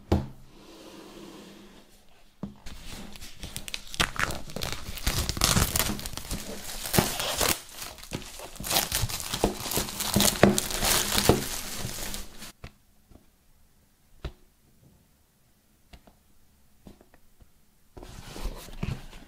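Clear plastic shrink wrap crinkling and tearing as it is peeled off a cardboard box, dense and crackly for about ten seconds. Before it comes a knock, and after it a few light taps and a short rustle near the end.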